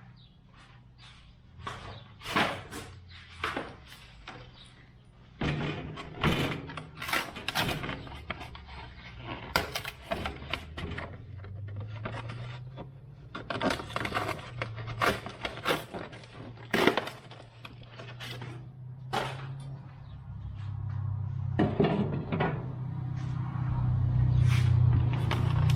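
Irregular knocks, clicks and clatter of grill parts being handled and fitted during assembly, with a low hum that comes in about five seconds in and grows louder toward the end.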